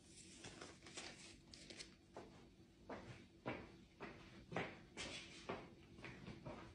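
Faint, irregular soft knocks and rustles, about one or two a second.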